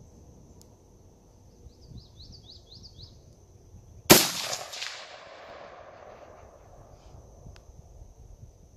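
A single shot from an AR-15 rifle in .223/5.56 about four seconds in: a sharp crack followed by an echo that dies away over a second or two. A steady high insect buzz runs underneath, with a short run of bird chirps shortly before the shot.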